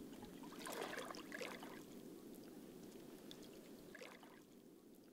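Faint outdoor ambience: a low steady hiss, with a few soft wet trickling sounds about a second in and again near four seconds.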